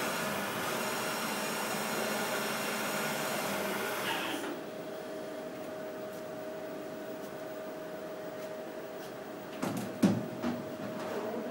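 CNC milling machine running, its spindle giving a steady high whine and hiss that cuts off about four and a half seconds in, leaving the machine's steady hum. A few knocks and clatter come near the end.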